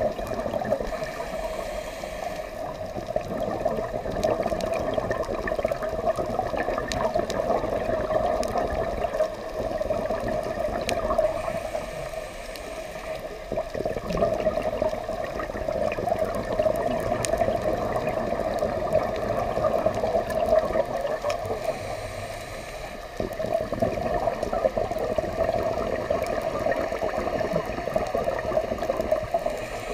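Underwater bubbling and gurgling from a scuba diver's regulator exhaust, swelling and easing every few seconds with the breathing, over a steady wash of water noise, with scattered faint clicks.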